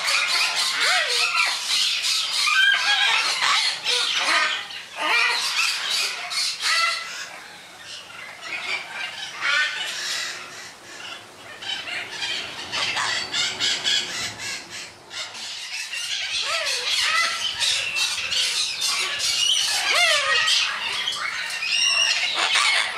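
Sulphur-crested cockatoos giving harsh, screeching squawks, many calls overlapping, with a few short rising calls. The calling thins out for several seconds in the middle and then picks up again.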